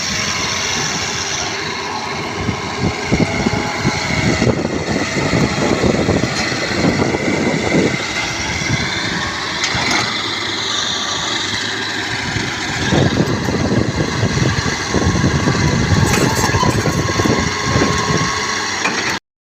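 Heavy diesel machinery engines running during the recovery of an overturned dump truck by an excavator. The low rumble grows heavier twice, a few seconds in and again past the middle, as the engines work under load. The sound cuts out for a moment at the very end.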